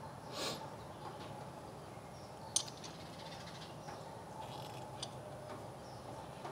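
Steel C-clamp being screwed down slowly against an old brake pad to push the brake caliper piston back into its bore: faint creaks and squeaks from the clamp, with a short squeak about half a second in and a sharp click about two and a half seconds in.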